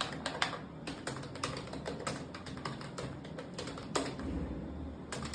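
Computer keyboard typing: quick, uneven key clicks, with one heavier keystroke about four seconds in.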